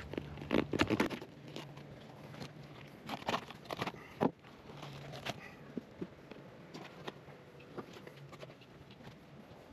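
Knife cutting and scraping along a fish carcass as it is filleted: irregular scrapes and crunches, heaviest about half a second to a second in and again around three to four seconds in.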